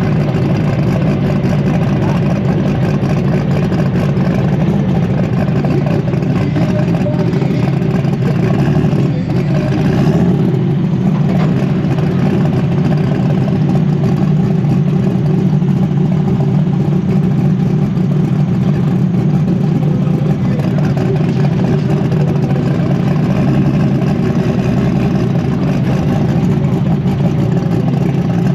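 Heavy pulling-tractor engine running loudly and steadily, with a slight change in its sound about ten seconds in.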